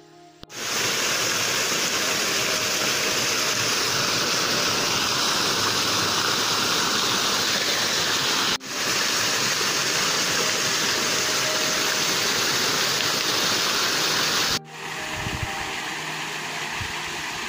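Water from an artificial rock waterfall pouring and splashing into a pond, making a loud, steady rush. The sound breaks off abruptly twice, and after the second break, near the end, the rush is quieter with some low rumbling.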